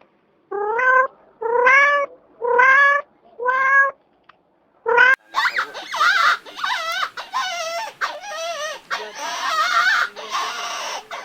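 Domestic cat meowing five times in short separate calls, each rising in pitch. About five seconds in, the sound cuts to a dense run of warbling calls from another animal.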